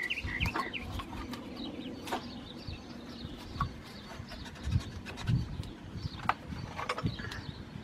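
A 2011 Nissan Quest's cast-iron front brake caliper being lowered and seated over new brake pads and spreader clips: scattered light metallic clicks and scrapes with a few dull knocks. Birds chirp faintly in the background.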